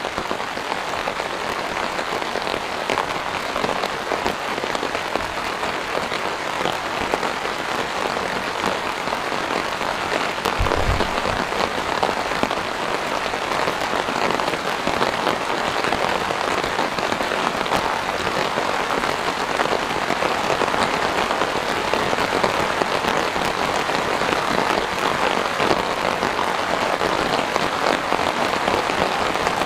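Steady rain, a dense, even patter of raindrops. One brief low thump comes about ten seconds in.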